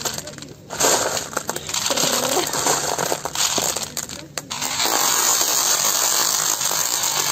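Hard gumballs clattering against a metal scoop and the cardboard box as they are scooped up and poured back in a rattling stream.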